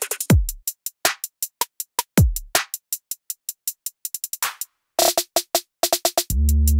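Electronic background music: a drum-machine beat of fast hi-hat ticks and deep kicks that slide down in pitch. The beat drops out briefly about two-thirds through, and a held low synth chord comes in near the end.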